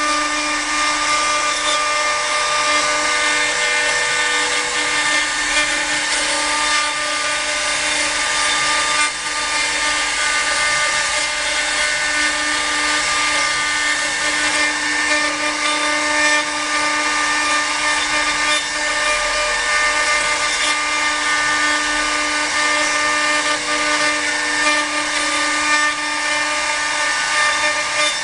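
Spindles of a multi-head 4-axis CNC wood router running with a steady whine of several held tones while the cutters carve wooden blanks on the rotary axis, over a constant rough cutting noise.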